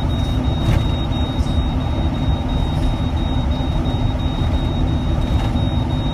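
Steady low rumble of a truck's engine and tyres heard from inside the cab while driving at speed.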